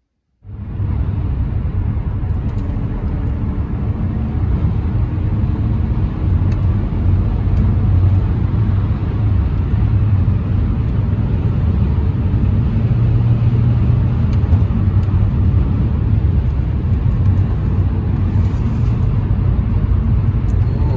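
Steady low rumble of road and engine noise inside the cabin of a 2010 Hyundai Sonata with the 3.3-litre V6, cruising on a highway. It starts abruptly about half a second in.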